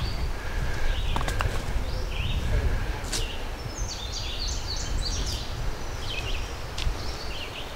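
Songbirds chirping in summer woodland, with a quick run of stepped chirps about halfway through, over a steady low rumble. A few sharp clicks come in the first few seconds.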